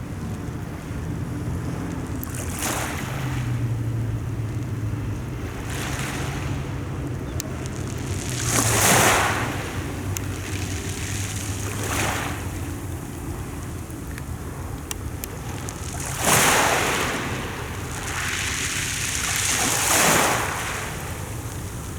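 Mediterranean sea waves washing in, a rushing surge every three to four seconds, the loudest about nine and sixteen seconds in, with a faint low hum underneath in the first half.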